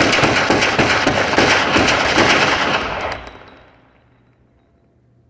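Semi-automatic pistol firing a rapid run of shots in quick succession, stopping about three seconds in, its echo fading away over the following second.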